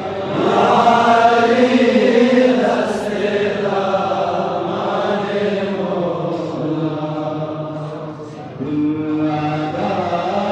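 Unaccompanied devotional chanting in praise of Ali, with long melodic held notes that rise and fall. The level dips briefly about eight seconds in, then the chanting picks up again.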